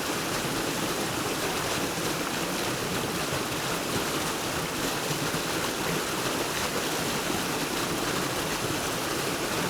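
Small mountain creek running over rocks: a steady, even rush of water.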